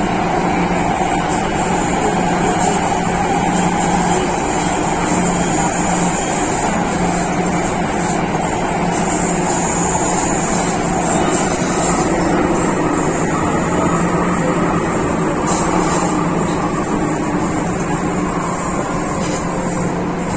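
MTR Tsuen Wan line M-Train running between stations, heard from inside the car: a steady, loud running noise of wheels on rail with a constant low hum underneath.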